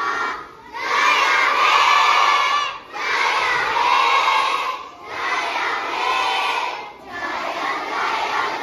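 A group of young children shouting out together in unison, in phrases about two seconds long with short breaks between.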